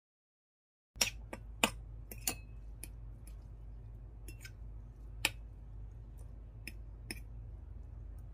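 Close-miked eating sounds: scattered sharp mouth clicks of chewing and a metal fork clinking on a ceramic plate, over a low steady hum. The sounds start about a second in.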